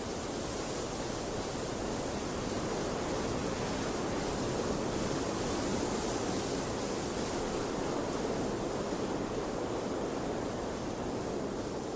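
Steady rushing of moving water, an even wash that swells slightly midway and eases back near the end.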